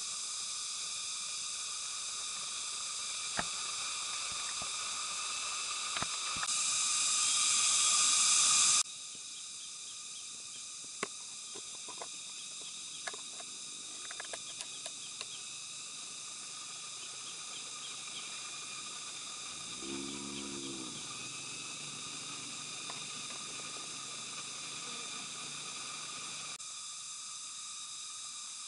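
Steady high-pitched chorus of forest insects, with one louder insect buzz swelling for about two seconds and cutting off sharply about nine seconds in. A few light clicks are scattered through it, and a short low-pitched sound comes about twenty seconds in.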